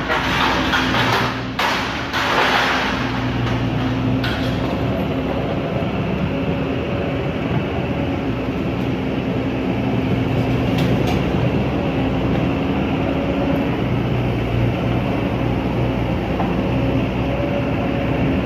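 Demolition excavator fitted with a DEMAREC hydraulic shear, its engine and hydraulics running with a steady drone. Some metal clattering in the first few seconds.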